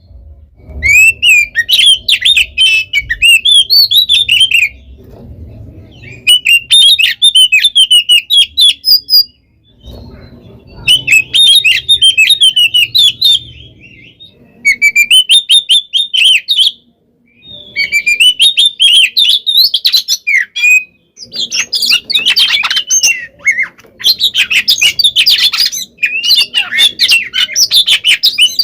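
Oriental magpie-robin (kacer) singing its loud fighting song: fast, varied phrases of high chirps and whistles in bursts of two to four seconds with short pauses between them. The song runs almost without a break from about two-thirds of the way through.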